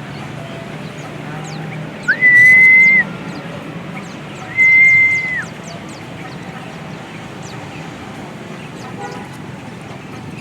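Two long, level whistle notes, each just under a second, about two and a half seconds apart, over faint high chirps of small birds.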